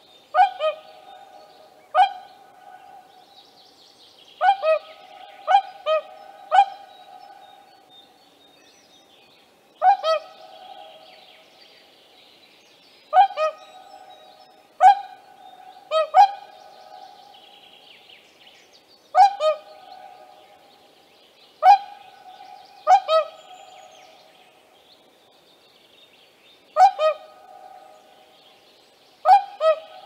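Whooper swan calling: short, loud honking notes, singly or in quick pairs, repeated every few seconds.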